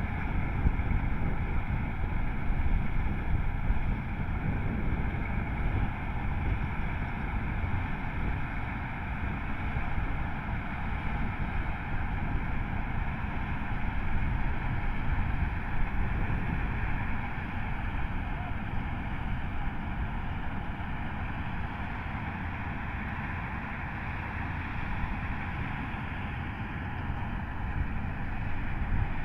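Self-propelled combine harvester running steadily, a continuous low machine rumble with a hiss of threshing and engine noise above it.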